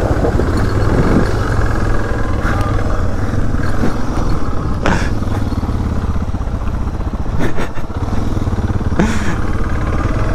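Off-road motorcycle engine running steadily while riding over rough ground, with a few sharp knocks along the way.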